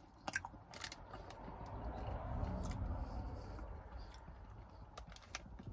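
Soft chewing and mouth sounds from eating an ice cream cone, with a few small clicks of its foil wrapper in the first second. Under it, a low rumble swells and fades over a few seconds.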